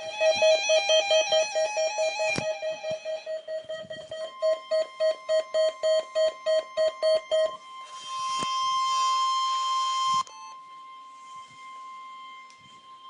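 NOAA Weather Radio warning alarm test: weather radio receivers' alarms beep rapidly, about three beeps a second, for the first seven or so seconds. The steady 1050 Hz warning alarm tone comes in about four seconds in and holds almost to the end, with a short burst of hiss midway.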